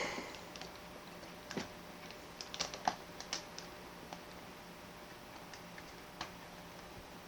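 Scattered light clicks and taps of plastic and metal as a CPU cooler's retention clips are hooked onto the motherboard's mounting tabs, with a cluster of clicks a few seconds in.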